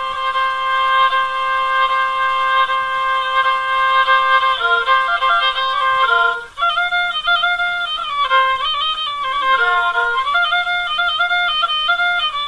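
Music: a solo violin melody. It holds one long note for about six seconds, breaks off briefly, then moves into a quicker, ornamented line of notes.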